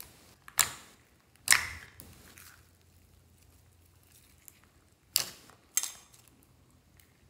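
Thick white slime with glitter mixed in, folded and pressed by hand in a glass dish, giving loud sharp pops. There is a pair about half a second in and another about five seconds in, with faint sticky ticks between.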